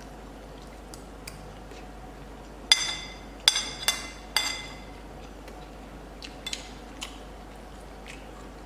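Cutlery clinking against a dish while eating: four sharp, ringing clinks in quick succession a little under three seconds in, then a few lighter taps.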